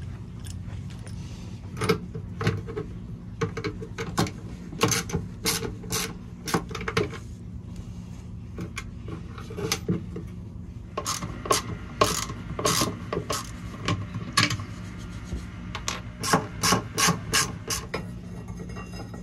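Hand tools on the mounting hardware of a catamaran's steering-gear track as it is unbolted and pulled out: a run of sharp metal clicks and scrapes in quick clusters.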